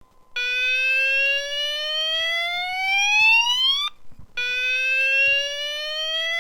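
Fire alarm sounder giving a slow-whoop evacuation tone: a rising whoop that climbs steadily for about three and a half seconds, breaks off briefly, then starts climbing again.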